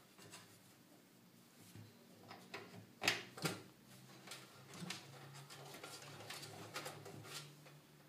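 Faint clicks, knocks and rubbing of plastic power-supply cables and connectors being handled inside a steel PC case as the 4-pin CPU power connector is fitted to the motherboard, with a couple of sharper knocks about three seconds in.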